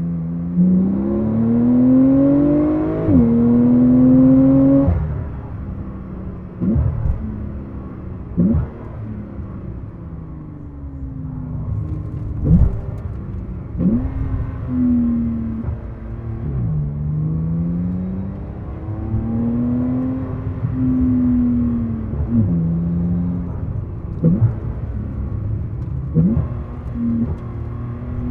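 Porsche 911 Turbo S twin-turbo flat-six with a Fabspeed Valvetronic exhaust, pulling hard and rising in pitch through a gear change in the first few seconds. The throttle then eases off, and the engine note rises and falls under lighter load, broken by several sharp cracks.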